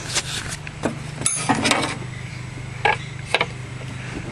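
A handful of separate metallic clinks and taps as a 3/4 in (19 mm) wrench is handled and put to work on the engine. One clink rings briefly. A steady low hum runs underneath.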